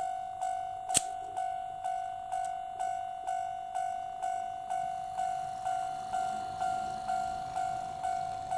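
Model railway level-crossing warning bell from a KATO automatic crossing set, dinging evenly about twice a second, with one sharp click about a second in.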